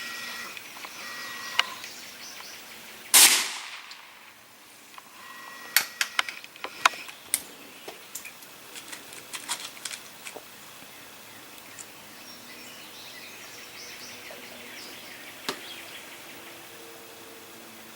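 A Remington No. 4 rolling-block .22 rimfire rifle fires a single shot about three seconds in, a sharp crack with a brief ring-out. A run of light clicks follows a couple of seconds later.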